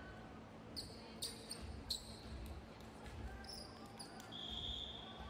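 Sneakers squeaking a few times on a hardwood gym court, with a volleyball bouncing and a low murmur of voices in the hall. Near the end comes a short, steady referee's whistle, the signal for the next serve.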